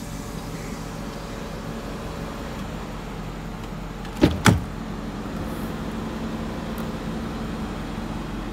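Jaguar XF's interior door handle pulled and the driver's door unlatching with two sharp clacks about four seconds in, as the door is pushed open. Under it runs the steady cabin hum of the car idling.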